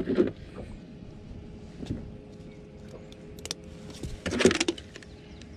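Handling noise while a bass is hung on a fish scale: a few faint clicks and one short rustling burst about four seconds in, over a faint steady hum.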